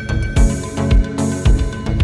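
Background music with a steady electronic beat, a low kick about twice a second.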